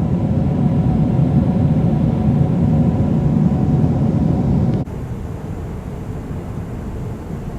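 Airliner cabin noise in flight: a loud, steady drone of engines and airflow with a few faint steady tones over it. About five seconds in it drops abruptly to a quieter steady rumble.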